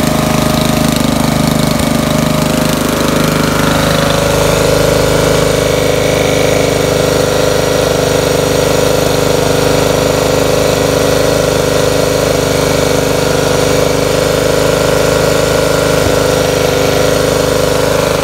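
Briggs & Stratton Vanguard 14 hp riding-mower engine running steadily just after starting, with a freshly changed oil filter.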